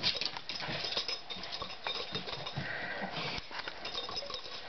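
Two small terriers play-fighting on a dog bed: a busy scuffle of rustling fur and bedding, paws and claws patting and scrabbling, and short low thumps, with a brief higher-pitched sound a little past halfway.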